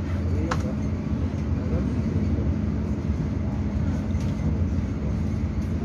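Inside a Chu-Kuang Express passenger carriage pulling out of a station: a steady low rumble of the moving train with a constant hum. A single sharp click comes about half a second in.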